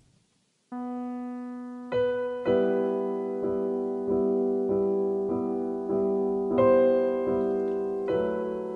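Piano music: after a brief silence, a held note, then chords struck again and again at a slow, even pulse.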